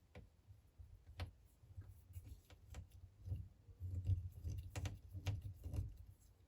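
Small hand tools clicking and tapping on an opened smartphone's parts during reassembly: an irregular string of light clicks and soft knocks, busier in the second half.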